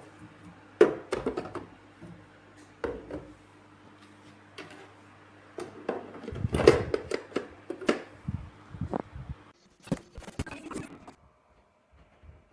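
Knocks and clatters of objects being handled, irregular and some sharp, over a low steady hum that cuts off about nine and a half seconds in.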